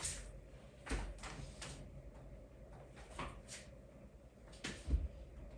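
Handling noises: a series of light clicks and knocks as objects are picked up and moved, with a dull thump about five seconds in.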